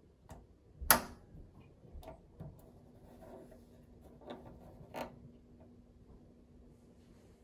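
Rocker power switch of a vintage electric hot plate snapping on with one sharp click about a second in, followed by several softer clicks as the control knob beside it is turned. A faint steady hum runs under the second half.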